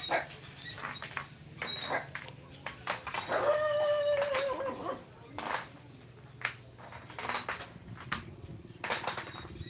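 Puppy whining, with one drawn-out whine about three and a half seconds in, among scattered short clicks and clinks.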